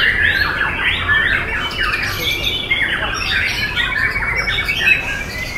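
Many white-rumped shamas singing at once: a dense, unbroken mix of short, fast rising and falling whistled phrases overlapping one another.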